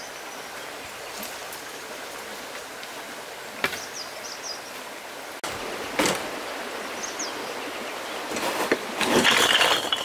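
Steady rush of a flowing river. Near the end comes a loud clatter of clay bricks tumbling out of a tipped wheelbarrow, with a few single knocks earlier.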